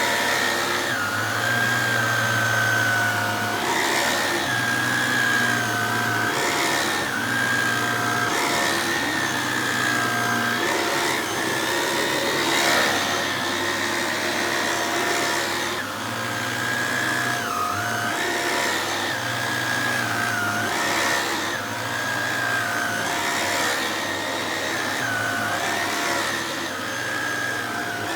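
Shark DuoClean True Pet corded stick vacuum running with its pet tool drawn over a fabric sofa. Its motor gives a steady whine that dips briefly in pitch every few seconds, over a low hum that swells and fades with the back-and-forth strokes.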